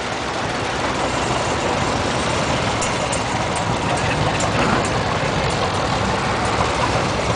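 Old farm tractor engines running as the tractors drive slowly past, a steady low throb that grows a little louder in the first couple of seconds.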